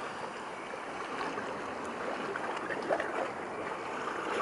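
Small ocean waves washing against a rocky shoreline: a steady wash of surf.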